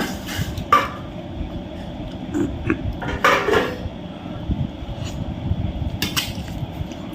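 Clinks and scrapes of a plate as chicken curry is eaten from it, with a few short knocks over a low, steady rustle of food being handled.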